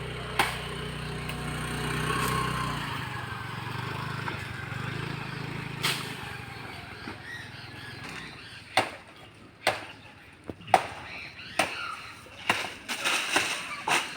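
Sharp chopping blows of a blade biting into coconut wood, about one a second through the second half. Before them a steady motor hum fades out.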